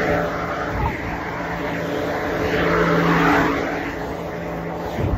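Engine noise: a steady low motor hum, with a louder swell about halfway through that rises and falls away like something passing.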